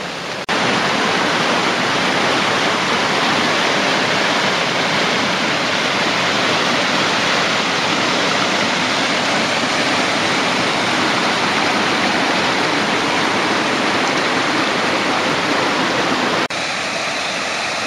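Upper Bode waterfall, a river cascading over granite boulders: a steady, loud rush of water. Near the end the sound drops slightly and changes as the river's rushing flow below the falls takes over.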